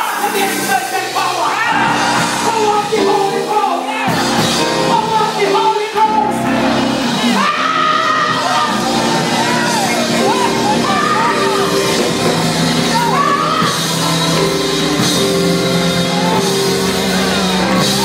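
Church music with held chords, and a woman's voice singing and calling out over it through a microphone.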